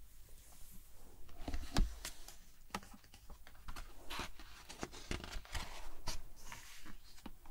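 Paper rustling and soft taps as fingers handle and turn a page of a hardcover picture book, with one louder tap about two seconds in.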